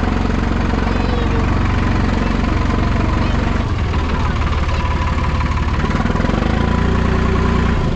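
Diesel engine of a Hattat 4x4 tractor running steadily, its note changing about halfway through.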